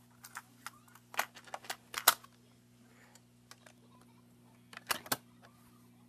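Plastic parts of a Teddy Ruxpin toy bear being handled: a scatter of sharp clicks and knocks, in two clusters, one about a second or two in and one near five seconds in.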